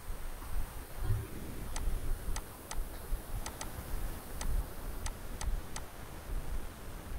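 Computer mouse buttons clicking about nine times at an irregular pace, including one quick double-click, over a low desk rumble.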